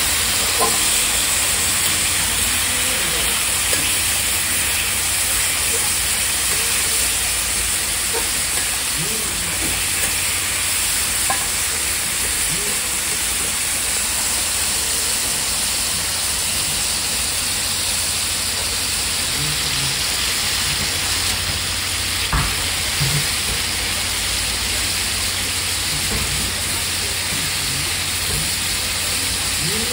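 Beef and pork offal frying in butter on a flat iron griddle: a steady, loud sizzle, with a couple of light knocks about two-thirds of the way in.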